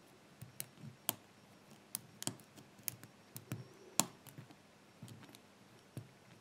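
Lock pick working the pins of a BRINKS 5-pin brass padlock during single-pin picking: small irregular metallic clicks and ticks, with the loudest click about four seconds in.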